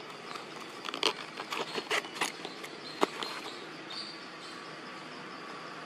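Steady outdoor background hum of insects, with a quick run of sharp clicks and taps over the first three seconds, one louder than the rest about three seconds in, and a short high chirp about four seconds in.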